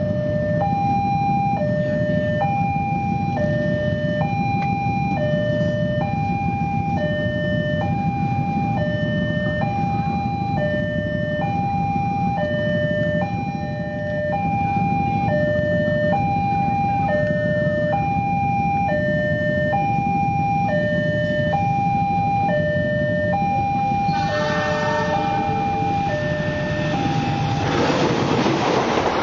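Railway level-crossing warning alarm sounding a two-tone ding-dong, high and low notes alternating about once a second, over a steady low rumble. A little before the end a train horn sounds briefly, then a passenger train rushes past the crossing at speed.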